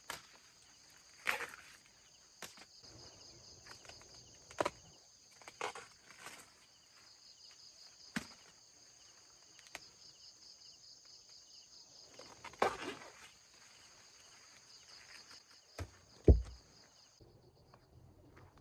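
Insects chirring steadily in a high buzz that cuts off suddenly near the end, with scattered rustles and footsteps through garden plants and one heavy thump shortly before the buzz stops.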